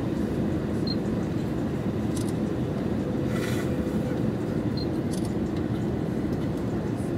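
Steady cabin noise inside an Airbus A321 descending on approach: a low, even rumble of airflow and engines with a faint steady hum. A brief hiss comes about three and a half seconds in.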